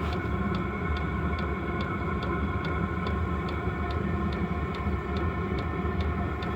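Diesel air heater running steadily: a continuous combustion-fan and burner drone with the fuel dosing pump ticking evenly, about two and a half ticks a second.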